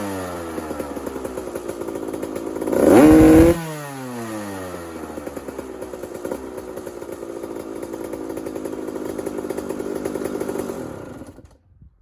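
Kawasaki KX125's single-cylinder two-stroke engine idling, revved once sharply about three seconds in and dropping back to idle. It falls silent near the end.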